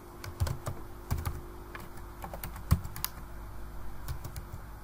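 Computer keyboard being typed on: irregular, unhurried keystroke clicks with pauses between them, one louder keystroke near the middle.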